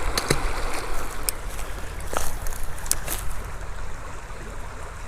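Small stream running, with a few sharp clicks and knocks over it.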